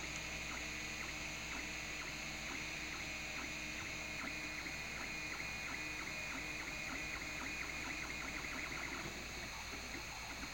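Home-assembled 3D printer at work: its stepper motors whine in short tones that change pitch with each move of the print head, over a steady fan hum.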